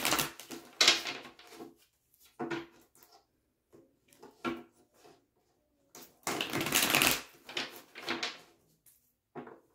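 A tarot deck being shuffled by hand: irregular bursts of cards rustling against each other, with a longer burst about six seconds in.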